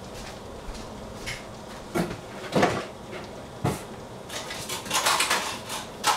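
Kitchen clatter: separate knocks of kitchenware about two, two and a half and three and a half seconds in, then a quicker run of clinks and clicks around five seconds, over a steady low hiss.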